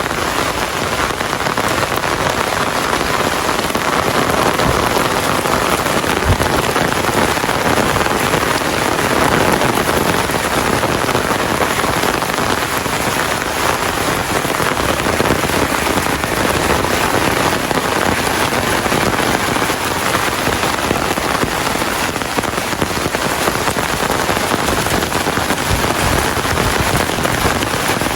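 Steady heavy rain falling and pattering on surfaces, an even dense hiss.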